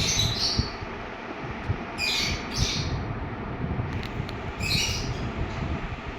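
A parrot giving four short, harsh squawks, over a steady low rumble.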